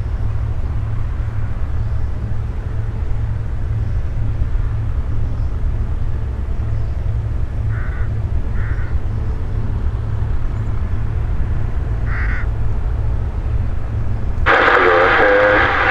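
Steady low rumble of wind buffeting the microphone, with a crow cawing three short times in the middle. Near the end a voice over a radio cuts in loudly.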